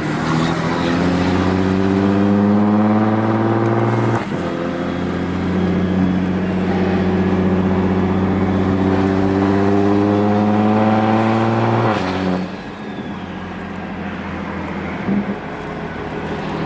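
Car engine accelerating: its note rises for about four seconds, breaks briefly at a gear change, then climbs again more slowly for about eight seconds before easing off.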